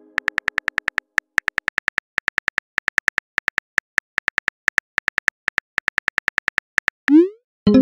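Simulated phone keyboard clicks as a text message is typed, rapid even taps in quick runs with short pauses. Near the end a short rising swoosh, the sound of the message being sent.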